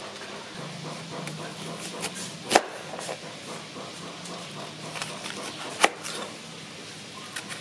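Kitchen knife cutting a yellow bell pepper on a wooden cutting board: small clicks of the blade and two sharp knocks as it hits the board, about three seconds apart, over a low steady hum.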